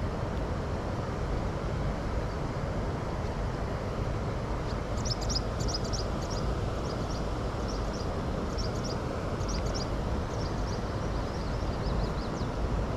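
Steady outdoor rushing noise, with birds chirping from about five seconds in.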